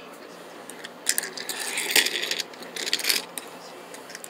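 A burst of clicking and clattering of small hard objects knocking together, loudest about two seconds in.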